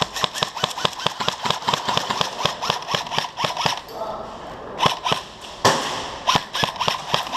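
Airsoft guns firing in rapid strings of sharp cracking shots, several a second, with a brief lull about four seconds in before the shooting picks up again.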